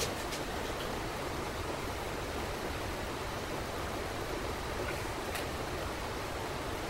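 Steady even hiss throughout, with a couple of faint light clicks as metal hydraulic pump sections are handled on the bench.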